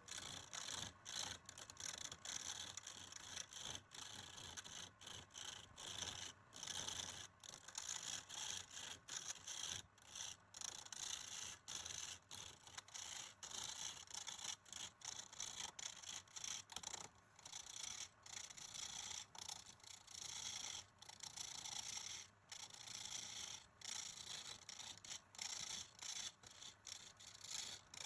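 Hand scrubbing of a hard surface with a stiff brush or abrasive, a rasping hiss in quick, uneven back-and-forth strokes with short pauses between them.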